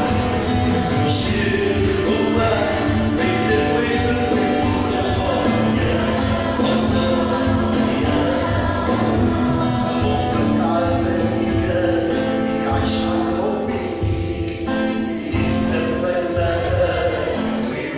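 Arabic Christian hymn sung by a choir led by a male singer, over instrumental accompaniment with a steady beat.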